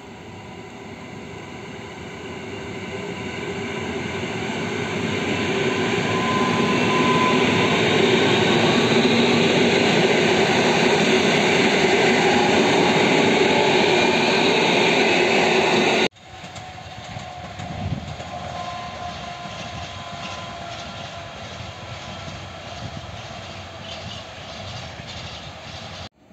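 Electric multiple unit approaching along a station platform and running past, growing louder over the first several seconds and then loud and steady, with a few steady tones over the rumble. About sixteen seconds in the sound cuts to a container freight train rolling by at a distance, quieter and steady.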